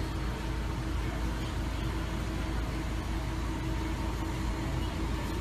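Steady low rumble and hum of background machinery, with a faint constant tone over it.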